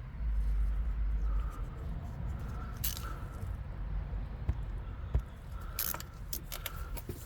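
Metal hand tools clinking as a socket, extension and ratchet are handled and fitted onto a bolt, with a few scattered sharp clicks. A low rumble of handling noise runs through the first second and a half.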